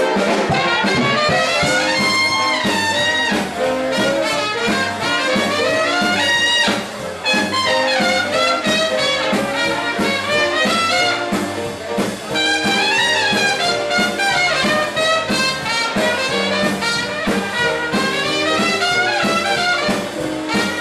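Swing jazz with trumpets, trombones and saxophones playing over a steady dance beat.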